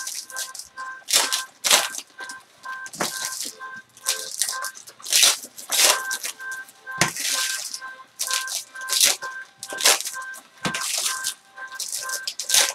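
Foil trading-card pack wrappers crinkling and tearing as they are ripped open and pulled apart by hand, in irregular loud rustles. Behind them, faint background music of repeating two-note beeps.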